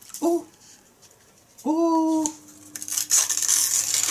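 Gift wrapping paper being crinkled and torn open by hand, a hissy rustle that is loudest near the end. Two short hummed vocal sounds come before it, the longer one about halfway through.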